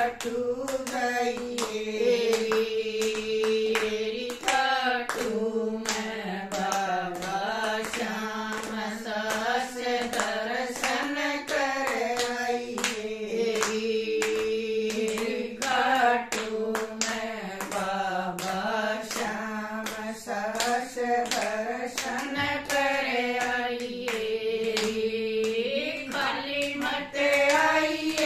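Group of women singing a Haryanvi devotional bhajan together, keeping the beat with steady rhythmic hand-clapping.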